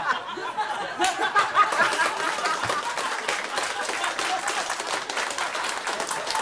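Studio audience laughing at a punchline, breaking into applause about a second in, with steady clapping and laughter mixed through it.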